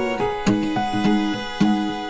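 Background music: a steady run of plucked string notes, each struck sharply and fading, over held tones.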